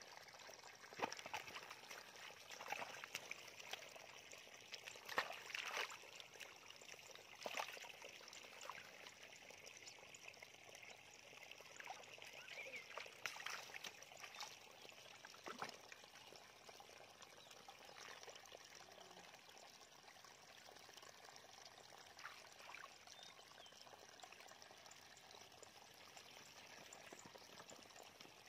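Faint sloshing and squelching of hands and feet working through shallow muddy water, with irregular small splashes that are louder in the first half.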